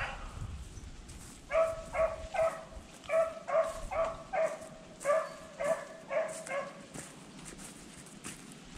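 A rabbit-hunting beagle barking in quick succession, about a dozen barks, as hounds do when running a rabbit's trail through the brush.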